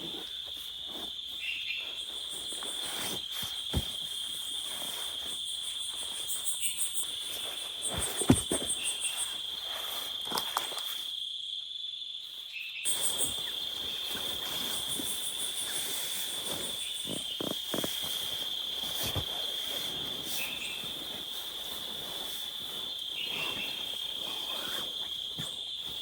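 Insects, crickets by the sound of it, trilling steadily in a high continuous drone, with bouts of faster, higher pulsing and scattered small taps and clicks. The sound cuts out briefly about twelve seconds in, then resumes.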